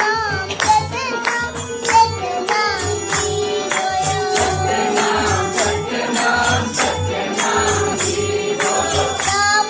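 A child singing a Hindu devotional bhajan live into a microphone, backed by a steady rhythm of jingling hand percussion and low drum beats.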